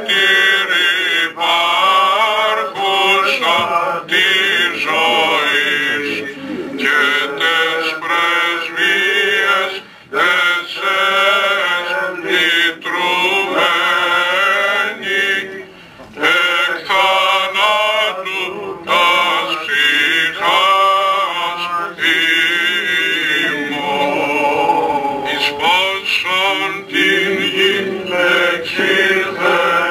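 Male voices singing slow, ornamented Greek Orthodox Byzantine chant without instruments. The long wavering phrases pause briefly twice.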